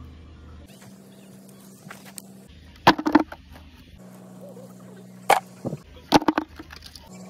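Stones dropped by hand into a plastic bucket already holding stones, clattering in short sharp knocks: a quick cluster about three seconds in, then single knocks and another cluster between about five and six and a half seconds in.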